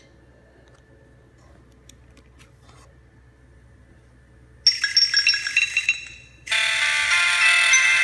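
Nokia 3220 ringtones: a quiet gap with a few faint clicks, then about four and a half seconds in a short, bright chiming phrase of quick notes, and from about six and a half seconds a new ringtone melody begins.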